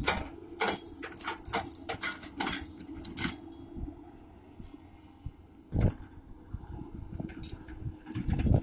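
Excavator engine running steadily, with a run of sharp metallic clanks and knocks in the first few seconds and heavy thuds near six seconds and again at the end as the machine works the ground.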